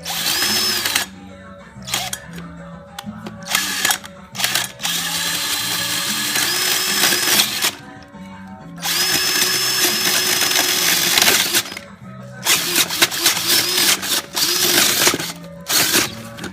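Power drill running a 3-inch hole saw into a waste pipe, in repeated bursts of a second to about three seconds that stop and start as the saw bites into the pipe wall. Background music plays underneath.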